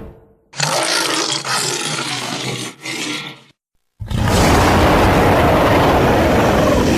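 Two separate creature roar sound effects for a gorilla character. The first starts about half a second in and lasts about three seconds, dipping briefly near its end. After a short gap, a second, louder roar begins about four seconds in and holds steady.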